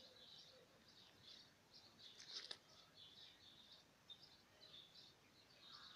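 Faint bird chirping: short high calls repeating two or three times a second, with a couple of soft clicks about two and a half seconds in.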